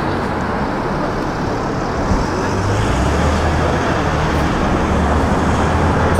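Street traffic: a steady rush of vehicle noise, with a low engine hum that grows louder about halfway through.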